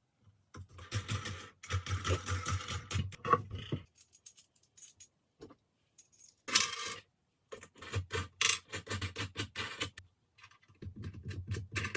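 Small metal parts and tools being handled on a workbench: clinking, clicking and scraping in three bursts, the loudest a brief clatter about six and a half seconds in.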